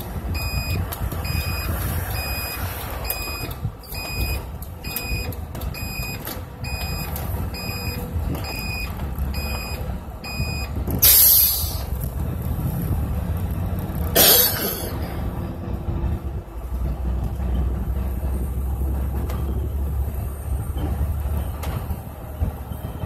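Motorcoach turn-signal indicator beeping, a short beep about every three-quarters of a second for roughly ten seconds, over the bus's steady engine and road rumble. It stops, and then come two short, loud hissing bursts, about three seconds apart.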